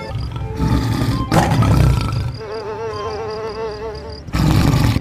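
Big-cat roar sound effects given to toy animal figures. One long roar comes first and another starts near the end, with a wavering pitched tone between them.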